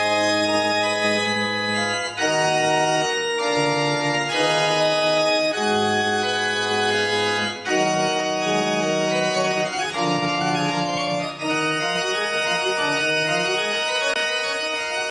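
Antegnati pipe organ playing a toccata: full sustained chords with moving inner lines, changing every second or so, with brief breaks between phrases. Near the end the sound eases off slightly under a held chord.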